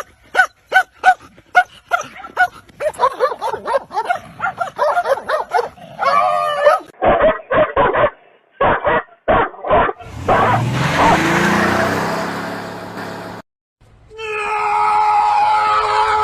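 A dog barking again and again in short barks, about two a second, for the first several seconds. Later comes a stretch of noise, then a steady held tone near the end.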